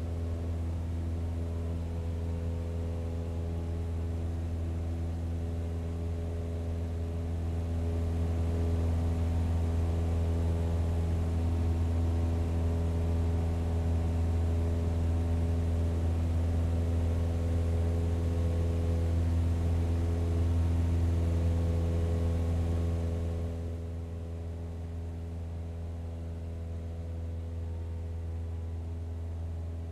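Boeing 787-8 jet engines at taxi power: a steady low drone with held whining tones. It drops a little quieter and duller about 23 seconds in.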